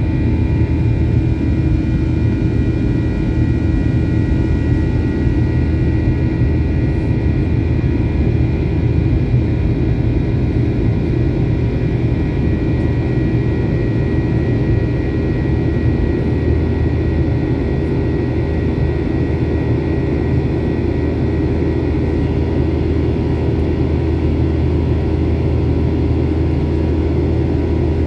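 Airliner engines at take-off power heard from inside the passenger cabin: a steady, loud low rumble with several constant tones running through it.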